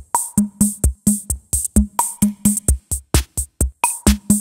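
Electronic intro music with a quick drum-machine beat: kick thuds, hissy high hits and a short repeated bass note.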